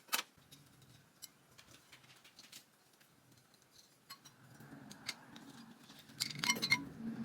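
Scattered light clicks and clinks with some rustling, from Christmas ornaments being handled and taken off an artificial tree; the clicks bunch together near the end.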